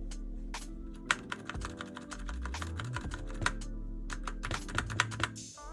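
Typing on a mechanical keyboard fitted with a polymer clay artisan keycap: keys clacking in quick, irregular runs of several strokes a second. Background music plays underneath.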